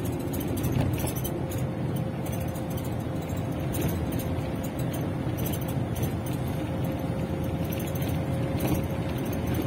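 Minibus driving along a road, heard from inside the passenger cabin: steady engine and road noise, with light rattles over it.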